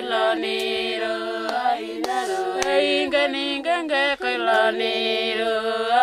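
Unaccompanied voices singing a slow, chant-like song with long held notes that glide between pitches.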